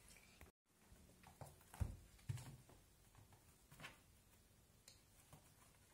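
Mostly quiet, with a few faint soft knocks and taps, the loudest about two seconds in: a cat batting a toy ball on a string against a sofa and padding on a laminate floor.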